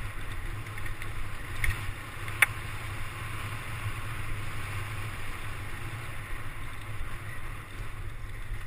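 Mountain bike riding fast over a dirt forest trail: a steady rush of wind on the microphone over the rolling of the tyres, with two sharp clicks around two seconds in.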